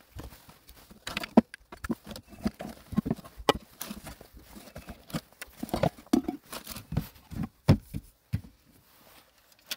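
Wooden storage crate being handled: its wooden lid is moved and gear inside is rummaged and knocked about, giving irregular knocks and clatter. The lid is laid shut near the end.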